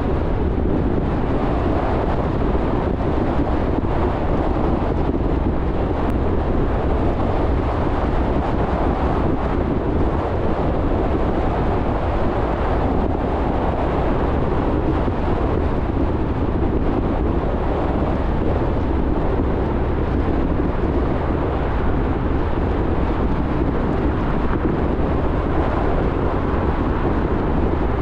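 Car driving at a steady speed: an even rush of tyre and road rumble mixed with wind noise, heaviest in the deep lows.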